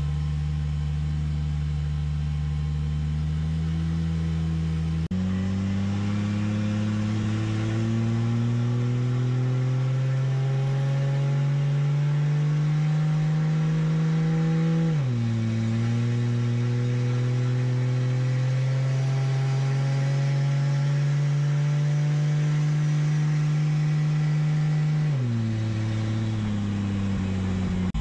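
Toyota 2JZ inline-six engine heard from inside the car's cabin, driving through a TH400 automatic transmission. The engine note climbs slowly in pitch as the car accelerates, then drops sharply at each upshift, about halfway through and again near the end.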